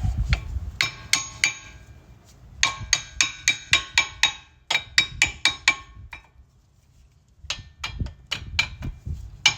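Metal tapping on brake parts: runs of quick, light metallic taps, about four a second, each with a short ring. They pause briefly past the middle, then come back softer.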